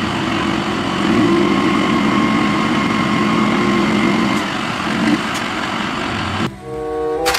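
A dump truck's engine running steadily, with a faint whine, as its hydraulic hoist tips the loaded bed. Near the end it cuts to a short bit of music.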